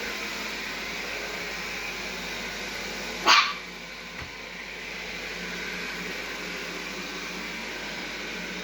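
Xiaomi Mijia LDS robot vacuum running with a steady whir. A single short, loud sound cuts in about three seconds in.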